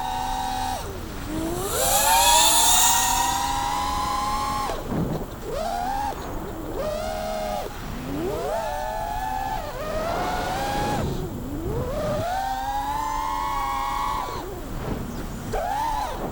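GEPRC Mark 5 FPV quadcopter's brushless motors whining, the pitch swooping up and down every few seconds as the throttle is worked in freestyle flight. A loud rushing hiss comes about two seconds in.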